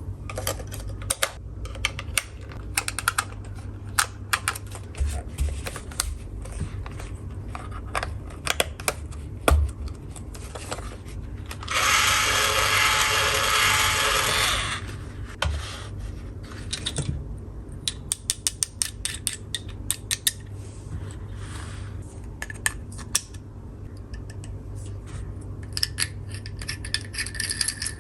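Small plastic toy tool pieces clicking and tapping as they are handled, with a toy battery-powered electric drill whirring steadily for about three seconds midway.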